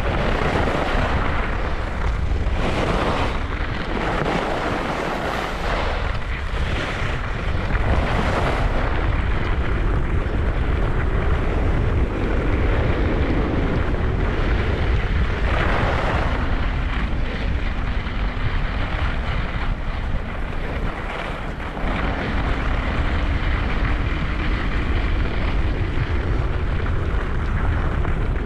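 Wind buffeting the microphone of a skier on a fast downhill run, a constant low rumble, with the hiss of skis on snow swelling and fading through the turns.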